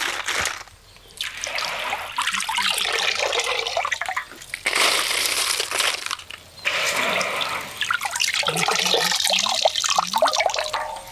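Water streaming and dripping from handfuls of soaked glutinous rice as they are lifted out of the soaking water and dropped into a banana-leaf-lined steamer pot, coming in several separate spells with short pauses between.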